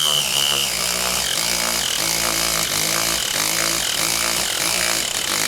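A 16.8-volt Dinshare 3/8-drive cordless ratchet running under heavy load as it drives a 5/16 lag bolt into old treated 4x4 wood. A high motor whine fades in the first second, and then the tool works on with a steady, rhythmic pulsing as the bolt turns into the wood.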